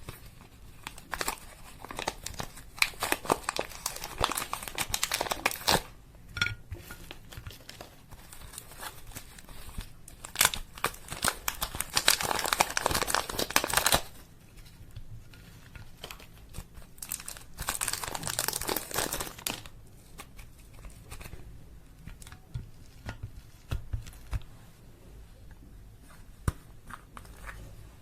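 Slime being worked by hand, crackling and popping in three spells of dense clicks with quieter spells between.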